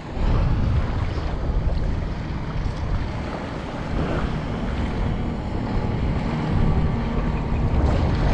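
Wind buffeting the microphone, with a motorboat's engine droning offshore and small waves lapping at the shoreline.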